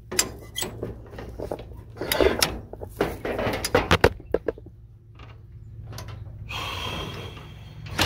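Knotter mechanism of an old grain binder tripped by hand: irregular metal clicks, clanks and rattles of the linkage as it rolls around, while it is being tested to see whether it ties and cuts the twine. A steady low hum runs underneath.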